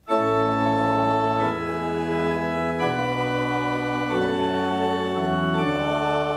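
Organ music starts abruptly and plays slow held chords that change about every second and a half.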